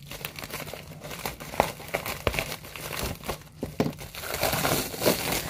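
Plastic bubble mailer crinkling and crackling as it is cut and pulled open by hand. The crackles come singly at first, then turn into denser rustling about four seconds in.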